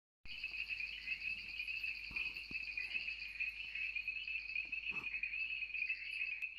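Crickets chirping in a steady, fast-pulsing high trill that starts abruptly just after the beginning.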